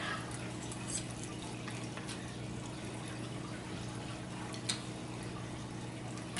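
Quiet eating: a few faint clicks of metal forks against plastic bowls, the sharpest about five seconds in, over a steady low room hum.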